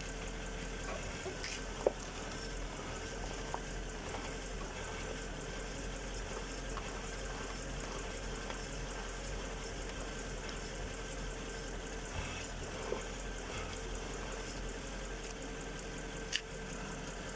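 Steady hum and hiss of a Mercedes-Benz W221 standing while its steering is turned, with a few faint clicks and no squeak heard: the front right upper ball joint has just been greased and its squeak is gone.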